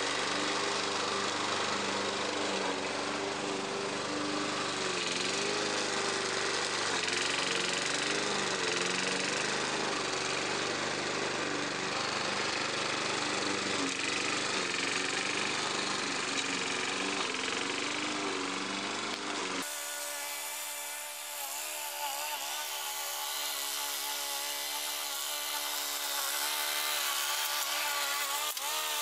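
Petrol engine of a Sabo rotary lawn mower running steadily while the mower cuts grass, its pitch wavering slightly as the load changes. About two-thirds of the way through the sound abruptly turns thinner, with much less low rumble.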